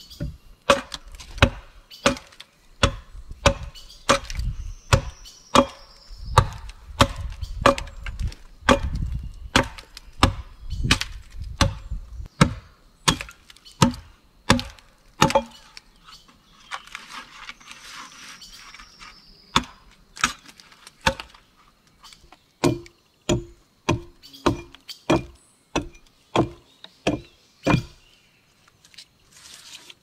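Axe chopping wood: sharp blows at about one and a half a second, a break of a few seconds in the middle, then a quicker run of about two blows a second that stops a couple of seconds before the end.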